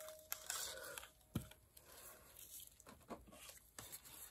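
Faint handling noise from painting tools: a short rustle, then a knock about a second and a half in and two lighter knocks near the end.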